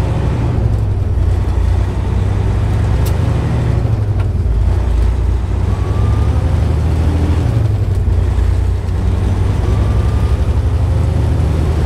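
Semi truck engine running steadily at highway cruising speed with road noise, heard from inside the cab.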